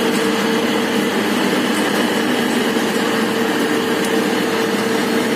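Mini dal mill (pulse dehusking machine) running steadily: a continuous machine hum with one strong mid-pitched tone.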